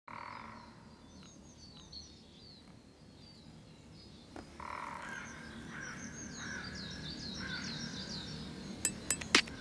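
Quiet opening of a music track: bird-like chirps, short and sliding in pitch, repeat over a faint hiss. Sharp clicks begin near the end, the start of the beat.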